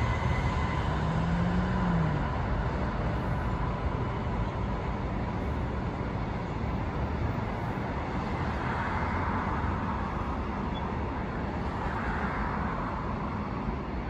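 Steady road traffic noise from cars and vans passing, with the rumble and thin wheel whine of a train fading away in the first second or so.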